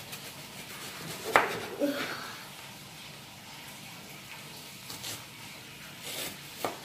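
Kitchen knife slicing an onion on a plastic cutting board: a few sharp taps as the blade comes down onto the board, the loudest about a second and a half in.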